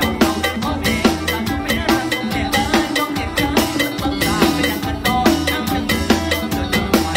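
Mor lam band music: a drum kit keeps a fast, steady beat under pitched band instruments.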